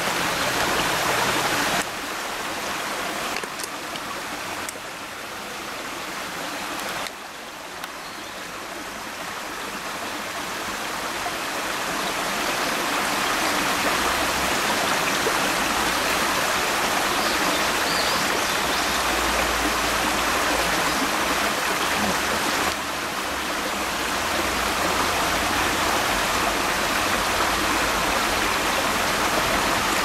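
Shallow stream running over stones: a steady rush of flowing water. Its level drops abruptly about 2 s and 7 s in, builds again, and drops once more for a moment near 23 s.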